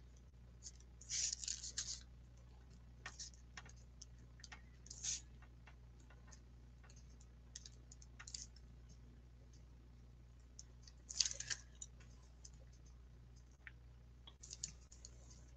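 Faint scratchy strokes of a drawing tool tracing over paper, coming in short bursts of a second or less with quiet gaps between them. The loudest burst comes about 11 seconds in.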